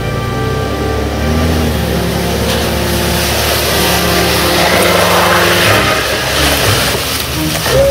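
Jeep Cherokee engine pulling a homemade plow board through snow, with a rough scraping hiss as the board pushes the snow along.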